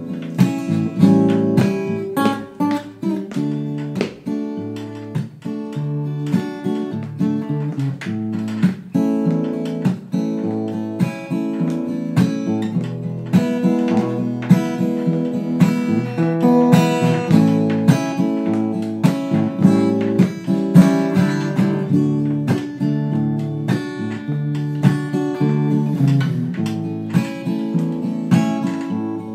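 Acoustic guitar strummed and picked in a steady chord rhythm, with no voice over it.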